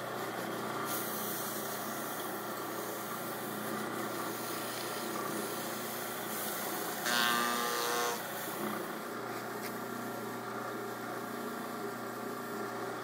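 Wood lathe running steadily, with a paper towel rubbing on the spinning wooden pepper-mill head as the finish is buffed to a high gloss. A louder rubbing stretch lasts about a second, some seven seconds in.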